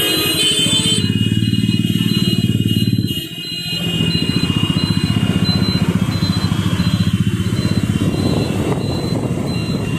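Motor two-wheeler under way: its small engine running with a fast pulsing rumble, and wind buffeting the microphone. The level dips briefly about three seconds in.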